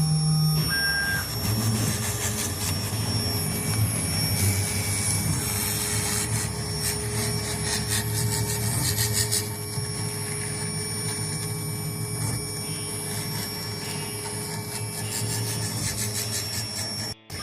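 CNC router spindle running steadily while a 2 mm tapered ball-nose bit carves a 3D relief into pine, a held whine over rasping cutting noise; it cuts out for a moment near the end.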